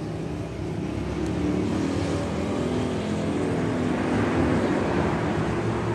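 Engine noise of a motor vehicle, steady low rumble that grows louder about a second in.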